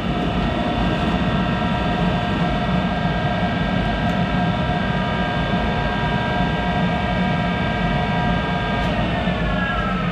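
Monarch 10EE lathe's drive running with a steady, many-toned whine; the owner thinks this noisy machine has a bad bearing somewhere. About nine seconds in, the pitch starts to fall as the machine winds down.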